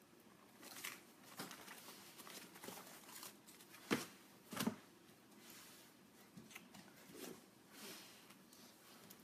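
Faint rustling and crinkling of paper and packaging handled on a table, with two light knocks a little after the middle.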